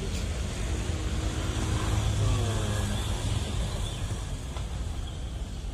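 Car driving along, a low steady rumble of engine and road noise.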